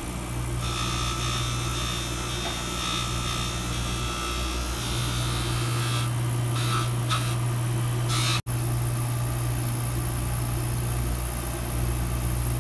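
Electric jeweler's polishing motor running steadily with a low hum while a ring is pressed against a spinning rouge buff, adding a rubbing hiss. The sound cuts out for an instant about two-thirds of the way through.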